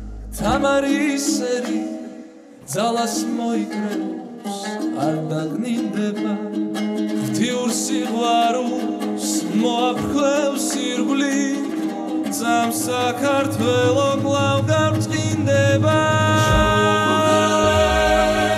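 Male vocalist singing a slow song over instrumental backing music, with a short break about two seconds in.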